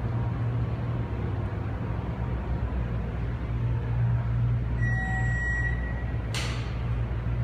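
Schindler passenger elevator car riding up one floor, with a steady low hum from the moving car. About five seconds in, as it reaches the second floor, a high electronic beep sounds for about a second, followed shortly by a brief burst of noise.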